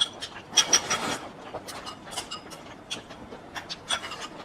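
Eating at the table: chopsticks and utensils clicking and scraping against bowls and plates in quick, irregular taps, with chewing.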